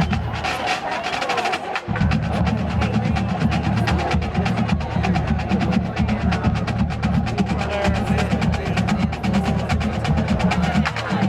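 Marching band drumline playing a cadence: rapid snare strokes throughout, with bass drums coming in about two seconds in.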